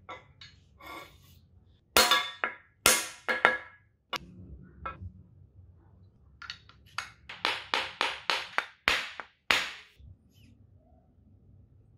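Metal scooter-fork parts being knocked and tapped: a few sharp metallic clanks, then a run of about nine evenly spaced ringing taps, about three a second, as a part is hammered into place.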